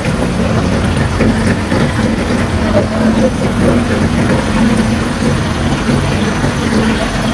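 Heavy diesel road-construction machinery running steadily, a low engine drone with a wavering hum.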